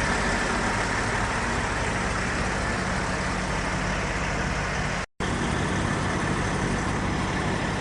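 Steady drone of a diesel engine running at idle, at a constant level. It is cut by a brief gap of total silence about five seconds in.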